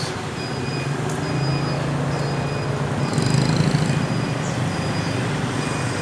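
Street traffic, mostly motorbike engines, running past as a steady low rumble that swells as a vehicle goes by about three seconds in. Over it, faint short high tones repeat about every half second, with a few brief sharp chirps.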